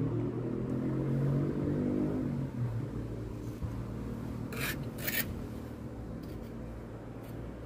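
A vehicle engine drone fades away over the first two or three seconds. Then a metal pointing tool scrapes twice in quick succession along the mortar joints between cobbles, about four and a half and five seconds in, followed by a few fainter scrapes.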